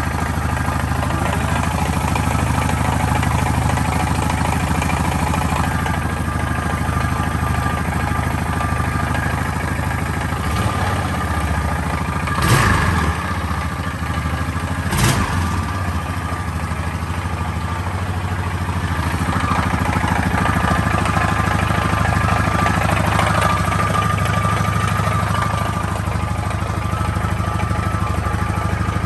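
Honda Foreman 500 ATV engine idling steadily, with two brief sharp noises about two and a half seconds apart near the middle. It carries an unexplained engine noise that the owner cannot identify.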